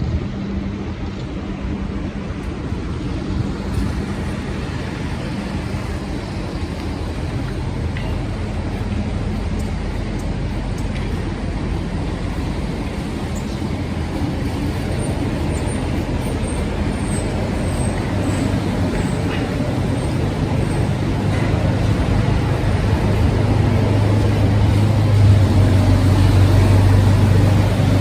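City street traffic: a steady wash of vehicle noise, with a low engine hum from a heavy vehicle close by growing louder through the second half.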